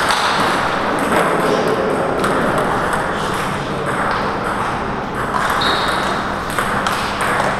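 Table tennis balls clicking off bats and tables in many short, irregular knocks from rallies at neighbouring tables, over a steady background noise.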